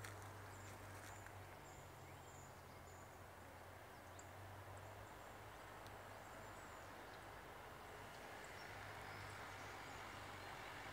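Near silence: faint woodland ambience with a steady low hum and a few faint, high, short bird chirps.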